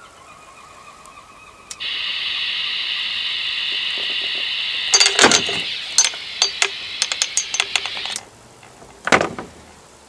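Steady rushing hiss of open-squelch receiver noise from an AN/PRC-77 military radio's handset. It starts abruptly about two seconds in and stops suddenly near eight seconds. Clicks and knocks of the handset and its cord being handled come over the second half, with a single louder knock about nine seconds in.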